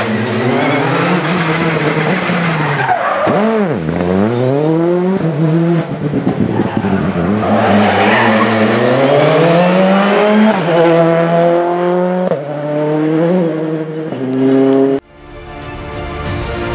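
Rally car engine revving hard. The revs drop steeply and climb again about three and a half seconds in, then rise through several quick upshifts, each a sudden drop in pitch. About two seconds before the end it cuts off abruptly to background music.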